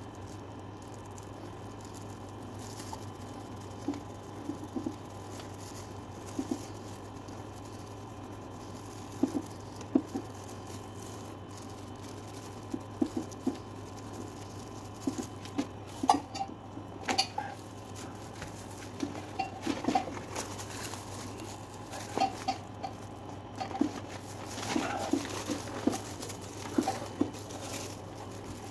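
Soft, irregular taps and dabs of handwork on a leather backpack being repainted, scattered at first and coming more often in the second half, over a steady low hum.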